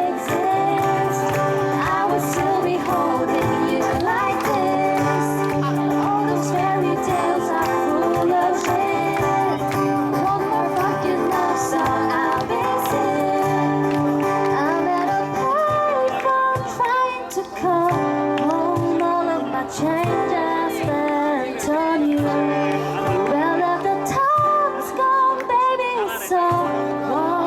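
Pop song playing, a singer's voice carrying the melody over a steady instrumental accompaniment.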